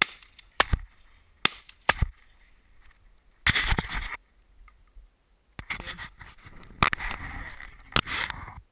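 Shotgun shots picked up by a camera mounted on the gun barrel: a quick run of sharp bangs in the first two seconds, then stretches of rough rustling noise with two more bangs near the end.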